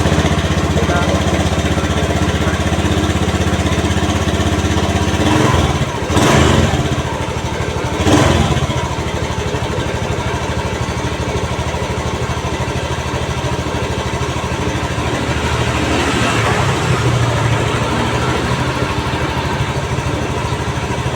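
Honda BeAT FI scooter's 110 cc single-cylinder engine running at idle, steady, swelling briefly louder twice, around six and eight seconds in.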